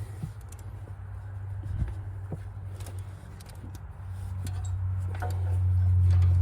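A steady low hum that grows louder over the last couple of seconds, with a few light clicks and taps of tools being handled.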